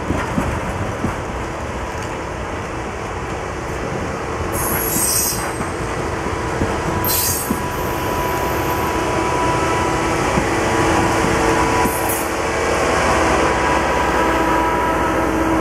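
Steel wheels of passenger railcars rolling past on the rails in a steady rumble. Sharp high squeals flare up about four, seven and twelve seconds in, and a thin squealing tone grows stronger in the second half.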